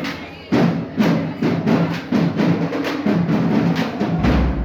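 Marching band playing: drums strike a steady beat under sustained brass, with a deep bass-drum boom near the end.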